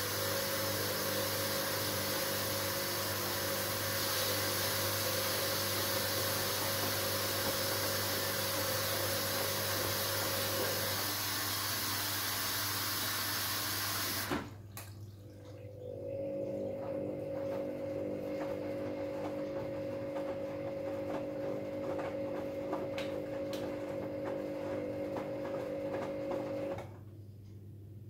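Hoover Dynamic Next washing machine taking in water, a steady rushing hiss with the motor humming beneath it. The water cuts off suddenly about halfway through. The motor then hums again for about ten seconds and stops.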